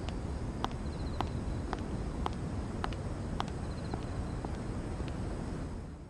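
High-heeled footsteps clicking at a steady walking pace, about two steps a second, over a steady low rumble, with two faint short high trills.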